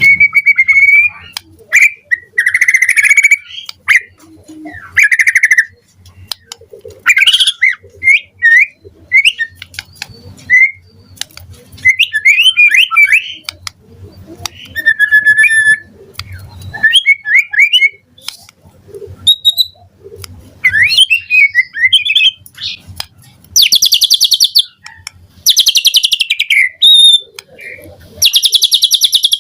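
White-rumped shama (murai batu) singing a loud, varied song of clear whistles, quick chirping trills and short phrases. Several harsh, rasping notes come near the end.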